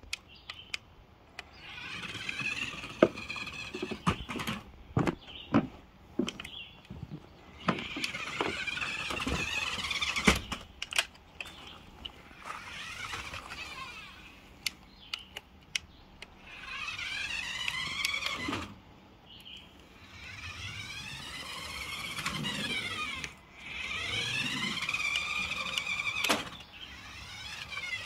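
Small electric motor of a WOWZON RC car whining in several short runs, its pitch rising and falling as the car speeds up and slows. Sharp knocks and clatter on the wooden deck boards come mostly in the first half.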